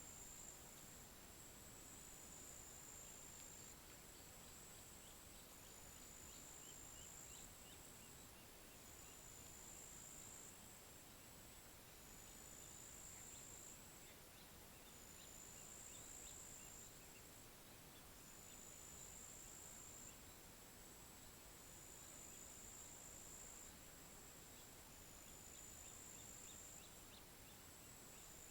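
Faint outdoor nature ambience: a high-pitched insect trill, like a cricket's, running steadily and pulsing in roughly one-second phrases over a soft hiss, with a few faint tiny chirps here and there.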